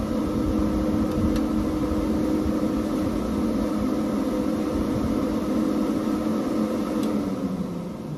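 Electric radiator cooling fans running with a steady whirring hum, on with just the ignition key although the thermostat switch is still cold: the thermostat lead has been wired to ground, so the fans run all the time. Near the end the hum drops in pitch and fades as the fans wind down.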